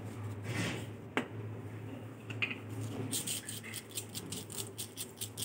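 A spice shaker shaken over a fried egg on a plate, giving a fast run of light, high rattling clicks from about three seconds in, after a single sharp click about a second in, over a steady low hum.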